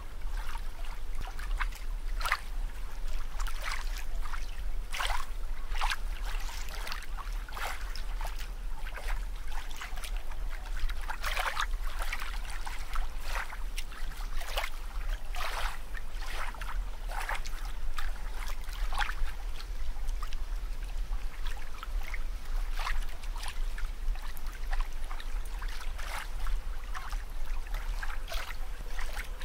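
Water sounds: irregular short splashes and trickling over a steady low rumble.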